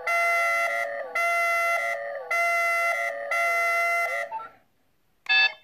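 Red-alert alarm sound effect played from a Sixteen Twelve Commlock replica's built-in speaker: four repeated electronic klaxon pulses of about a second each, then a pause and a short beep near the end.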